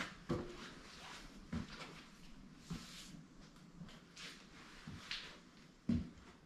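Handling noises: a few scattered knocks and clunks with brief scrapes in between, the loudest knock about six seconds in.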